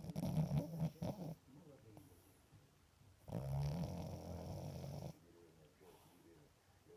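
A sleeping pet snoring loudly. There are two long snores about three seconds apart, the first one choppy and rattling, the second smoother and held for nearly two seconds.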